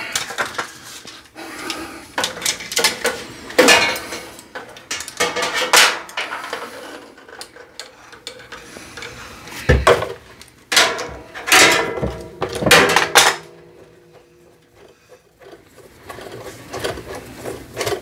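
Flexible rods of a dryer vent cleaning brush kit being handled and unscrewed with pliers: irregular knocks, clatter and rubbing, with a loud thud about ten seconds in.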